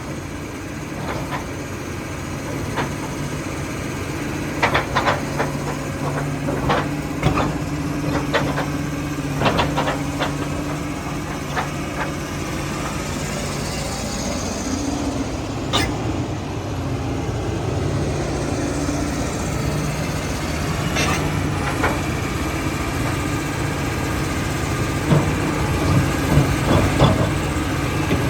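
Komatsu PC360 crawler excavator's diesel engine running steadily, with frequent short clanks and knocks over it, several in quick succession around five seconds in.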